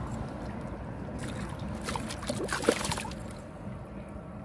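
Sea water sloshing and trickling against shore rocks, with a few sharp clicks and scrapes as a hook is worked out of a stingray's mouth, the loudest about two and a half seconds in.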